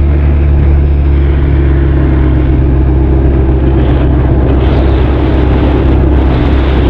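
Benelli TRK 502's parallel-twin engine and exhaust running at a steady cruise: a loud, even low drone with no change in pitch, picked up by a camera in the saddlebag.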